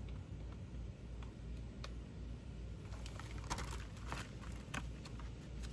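Rustling and light clicking of paper book pages being handled, mostly in the second half, over a low steady hum.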